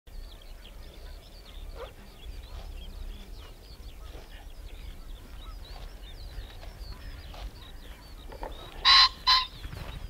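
A goose honks twice in quick succession near the end, loud and close together. Small birds chirp and twitter high and steadily underneath.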